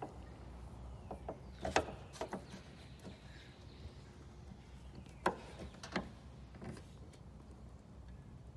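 A handful of light clicks and taps as a gas hood strut's end fitting is pushed onto its ball stud and handled against the steel mounting bracket, over a low steady hum.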